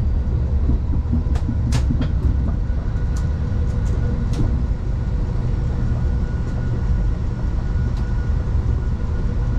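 Amtrak Acela passenger train running, heard from inside the passenger car: a steady low rumble with a faint thin steady tone above it, and a few short clicks and ticks in the first half.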